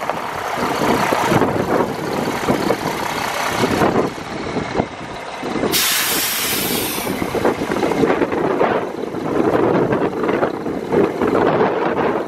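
Heavy cab-over truck's diesel engine idling, with a sharp hiss of compressed air released from the air brake system for a little over a second about six seconds in.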